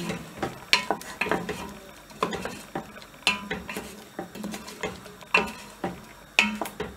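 Wooden spoon stirring chunks of meat in a thick sauce in an enamel pot, knocking and scraping against the pot's sides in irregular strokes.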